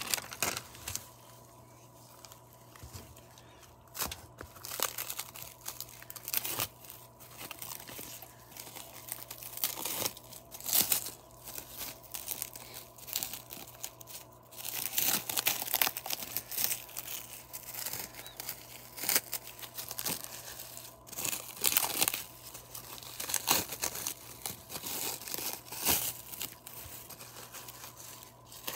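Clear plastic wrap around a bundle of cigars crinkling in irregular bursts as hands grip and pull at it.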